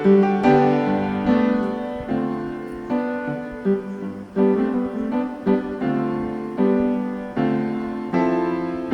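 Background music: a piano playing a slow melody of struck, ringing notes.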